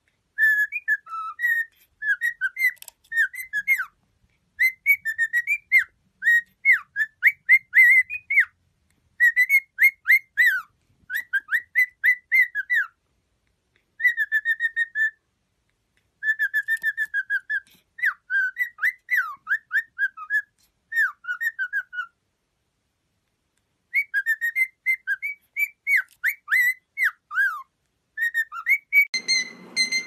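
Cockatiel whistling: quick runs of short chirping notes that swoop up and down, in bursts with brief silent pauses. Near the end a steadier, held whistled note begins.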